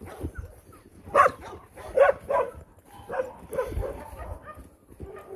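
Dogs barking: loud barks at about one and two seconds in, followed by quieter barks and yips.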